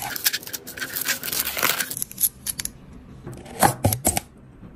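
Thin protective plastic film being peeled off acrylic panels: a crackling, rasping peel, followed by a few sharper clicks near the end.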